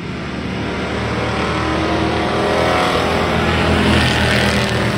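Engines of several racing pickup trucks running at speed as the pack comes around the turn and passes close by, growing louder and loudest about four seconds in.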